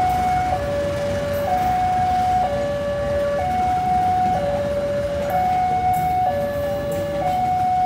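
Electronic two-tone warning siren sounding a steady hi-lo pattern, switching between a higher and a lower tone about once a second, over a constant background of traffic-like noise.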